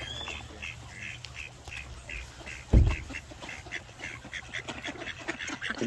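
Ducks quacking over and over in short calls, about three a second, as they come close expecting food. A single low thump sounds near the middle.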